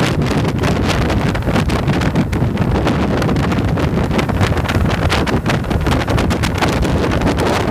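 Wind buffeting the microphone on a Yamaha motorcycle at motorway speed, in loud, irregular gusts over the low drone of the engine and road.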